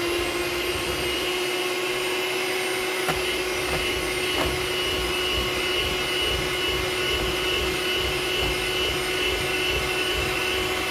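Master Chef electric hand mixer running at a steady speed, its beaters whipping eggs and powdered sugar in a stainless steel bowl for sponge cake batter. The motor gives a steady whine, with a couple of faint clicks about three and four seconds in.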